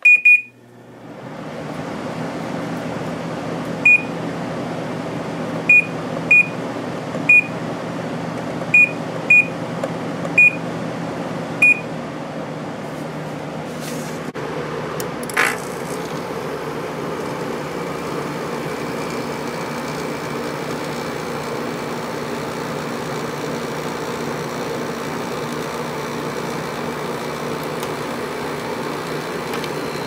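Samsung 10,200 BTU window air conditioner switched on, its fan motor spinning up within a couple of seconds and then running steadily, with the compressor held off by its start delay. The control panel beeps at power-on and then eight more times over the next dozen seconds. There is one short sharp noise about fifteen seconds in.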